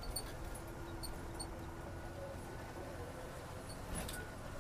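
Faint, steady low rumble of a bus driving up a hill road, heard from inside the cabin.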